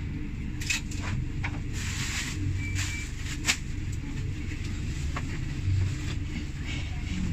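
Steady low rumble of a sleeper train carriage, broken by a few sharp clicks and knocks, the loudest about three and a half seconds in, as the berth and its metal fittings are handled.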